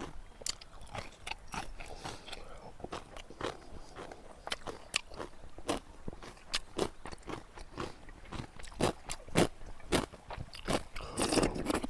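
Kimchi being bitten and chewed: a run of crisp, uneven crunches, about two or three a second, with a denser crunching patch near the end.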